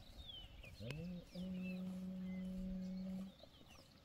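Birds chirping in short falling notes, with a low hum that slides upward about a second in, then holds one steady note for about two seconds and stops.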